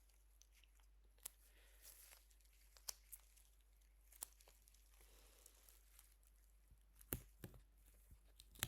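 Adhesive wound-closure strips being peeled and pressed on with tweezers: faint sticky peeling and crinkling with scattered soft ticks, and two sharper clicks late on.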